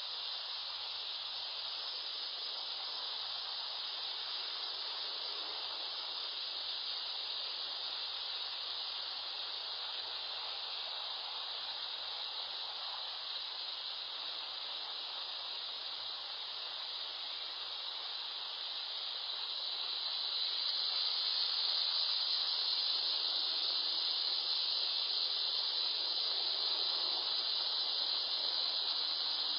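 A steady high-pitched hiss, getting a little louder about two-thirds of the way through, with no coughing or other sudden sounds in it.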